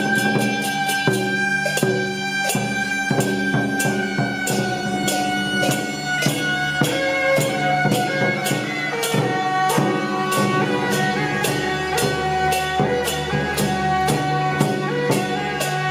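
Traditional temple procession music: a loud, reedy wind instrument holding long notes over a rapid, steady beat of drums and cymbals.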